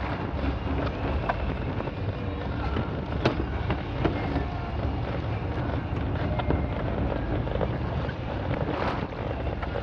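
Wind buffeting the microphone aboard a fishing boat: a steady low rumble with a few faint clicks.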